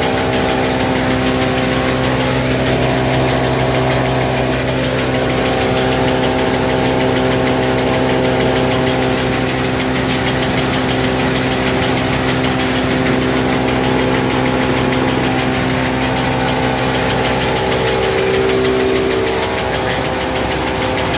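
Hong Yun pull-out facial tissue machine running: a steady mechanical hum of motors, rollers and conveyor, several held tones over a constant noise. A low part of the hum drops away shortly before the end.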